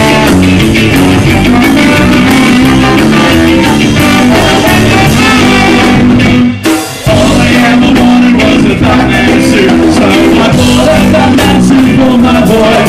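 Live band with a horn section (trombone and trumpet), electric guitars and drums playing loudly, with a short stop of about half a second a little past halfway before the band comes back in.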